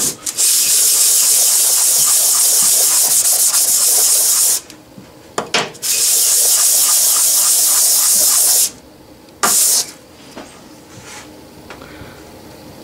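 A cast iron Logan lathe change gear is rubbed face-down on a sheet of 220-grit wet-or-dry sandpaper, giving a loud, steady, scratchy hiss. It comes in two long strokes of about four and three seconds, each followed by a short stroke, and falls quiet after about ten seconds. The sanding cleans the gear's face after electrolysis rust removal.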